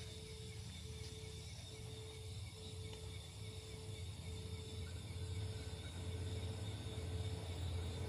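Low diesel-locomotive rumble of an approaching train, faint and growing steadily louder.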